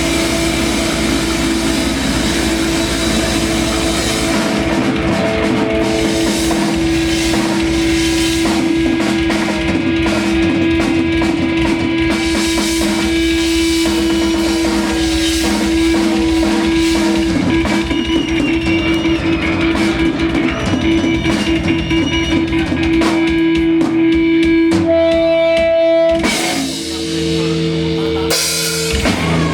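Live rock band playing electric guitar and drum kit. A long held guitar note sustains over busy drumming through most of it, with a brief drop in level near the end.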